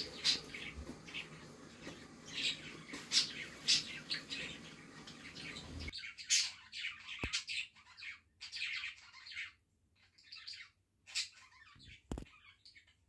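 Bird chirping, a run of short high chirps at irregular spacing. A steady background hiss cuts off suddenly about six seconds in.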